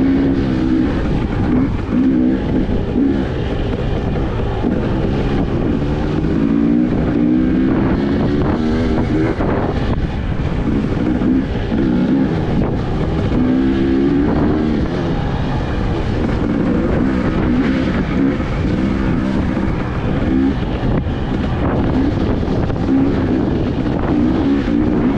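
2022 Husqvarna TE250i single-cylinder, fuel-injected two-stroke engine being ridden off-road, its revs rising and falling over and over as the rider works the throttle.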